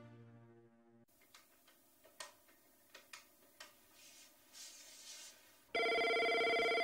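A telephone ringing: one loud ring about a second and a half long, starting near the end. Before it, the tail of background music fades out within the first second, leaving faint scattered clicks.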